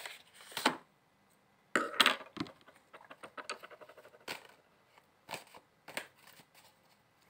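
Tarot cards being shuffled overhand by hand: a run of quick clicks and slaps as the cards are pushed through the deck, with a few louder handling knocks and rustles in the first couple of seconds.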